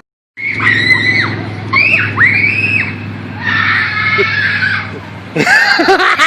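A child screaming in repeated high-pitched shrieks that rise and fall in pitch, over a steady low hum that stops about five seconds in.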